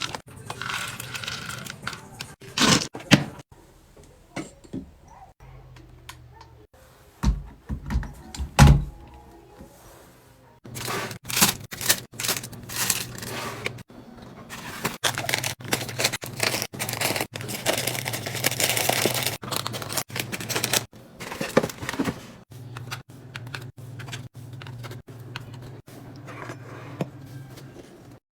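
Food packaging and plastic containers being handled and set down: a run of clicks, knocks and thunks with stretches of rustling and tearing, over a low steady hum.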